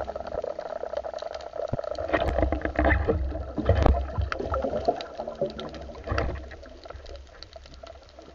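Underwater sound through a housed action camera: muffled water rush and low surges with many scattered sharp clicks and crackles, fading toward the end.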